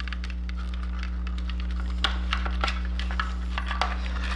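Small clicks and light rattling of wiring harness plugs and wires being handled and pushed through the openings of a motorcycle headlight shell, a scatter of ticks with the sharpest about two seconds in, over a steady low hum.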